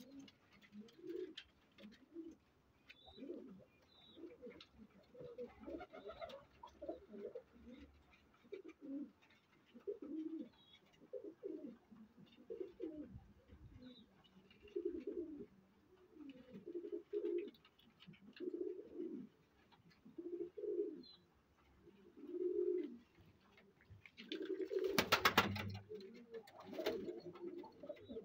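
Pakistani flying pigeons cooing over and over in low, repeated phrases, about one a second. A brief louder burst of noise comes near the end.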